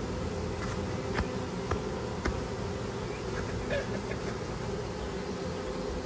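Honey bee swarm buzzing, a steady low hum from the massed bees, with a few light clicks in the first half.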